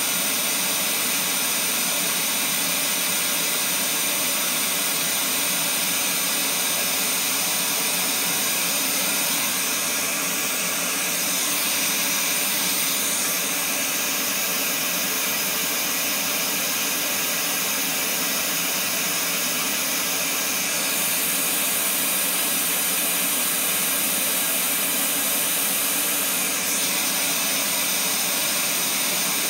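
Steady broadband test noise from a loudspeaker, an even hiss strongest in the treble, with small shifts in its colour now and then.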